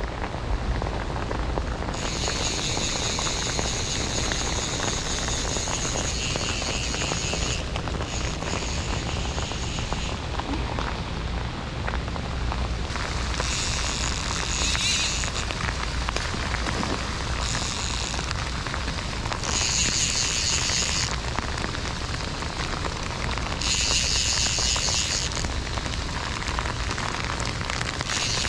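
Steady heavy rain, with a fly reel whining in about six bursts, several lasting a few seconds, while a hooked tarpon is played on the line.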